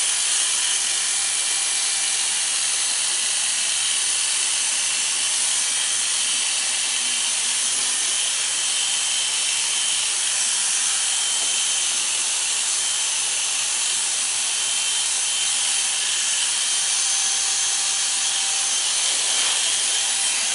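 Corded electric hair clippers running steadily as they cut short hair over a comb at the sides and back of the head.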